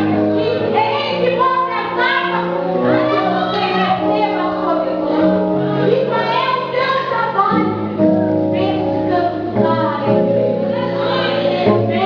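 A female voice singing a gospel worship song over instrumental accompaniment with sustained chords and a moving bass line.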